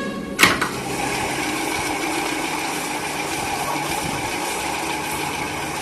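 Faulty ceiling fan running with a steady grinding rattle, like a flour mill running: the sign of a fault inside the fan. A sharp click comes about half a second in.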